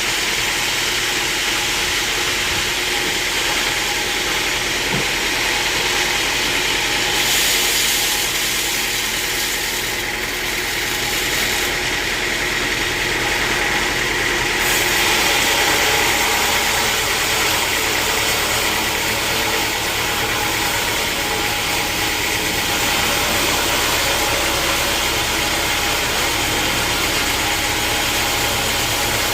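Sawmill machinery running steadily: a motor drone under a continuous hiss, the hiss growing brighter for several seconds about a quarter of the way in.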